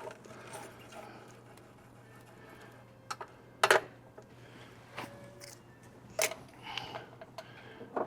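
A handful of short, sharp clicks and taps at irregular intervals, the loudest a little before halfway, from wiring parts and hand tools being handled during work on electrical connections. A faint steady hum sits underneath.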